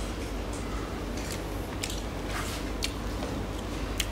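Close-up eating sounds: a handful of short wet clicks and smacks from chewing and from fingers working rice and curry, over a steady low hum.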